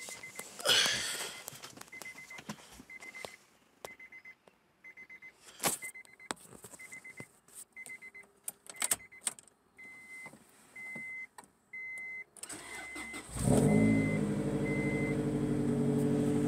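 The car's warning chime beeps in short repeated tones among a few clicks. About 12 seconds in, the 1998 Acura Integra's B18B1 1.8-litre four-cylinder cranks for about a second, catches, and runs at a high cold idle of about 1,800 rpm on its first start after a timing belt, water pump and oil pump job.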